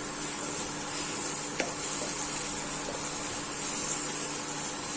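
Raw turmeric, ginger and ground spices frying in ghee in a pan, with a steady sizzle. There is one light click about one and a half seconds in.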